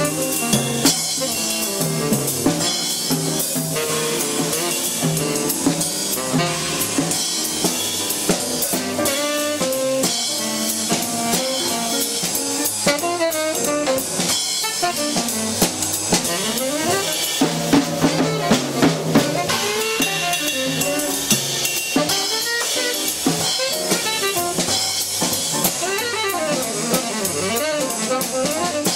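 Tenor saxophone playing a bluesy melody with bends and slides, over upright bass and a drum kit with cymbals and rimshots: a small soul-jazz combo.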